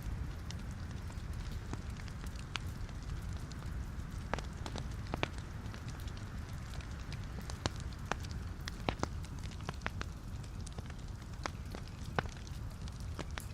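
Wood fire burning in a fireplace: logs crackling with irregular sharp pops over a steady low rumble of the flames.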